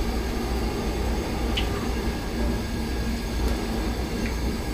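Gas wok burner running with a steady low rumble and hiss. A couple of faint light clicks sound over it.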